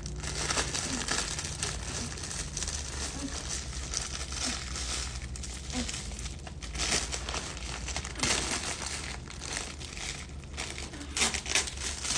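Clear plastic wrapping crinkling and tearing as a red pillar candle is unwrapped by hand, in irregular crackly bursts, the loudest near the end.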